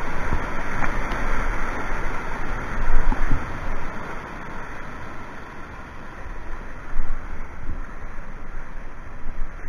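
Rushing white water at a river weir, a steady noise with a low rumble and louder surges about three and seven seconds in.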